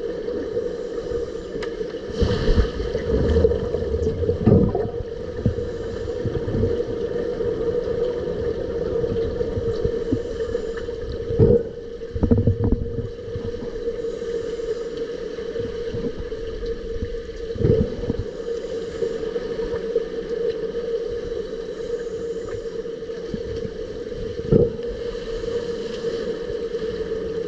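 Underwater sound in a swimming pool during an underwater rugby game: a steady hum with a rushing, bubbly noise beneath it, broken by a handful of dull knocks.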